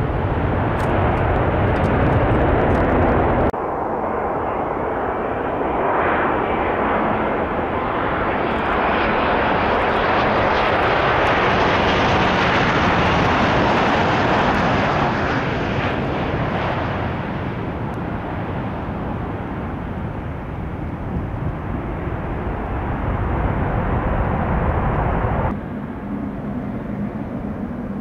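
Jet engines of a Boeing 787-9 twinjet passing: the sound builds to its loudest in the middle and then eases off. Another jet's engine noise cuts off abruptly about three seconds in, and a different one cuts in suddenly near the end.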